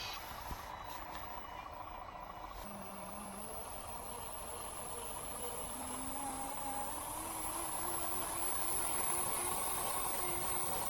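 Radio-controlled 8x8 scale truck driving, its electric drive motor and gears whining at changing speed, with a thin high whine joining a couple of seconds in and the sound slowly growing louder.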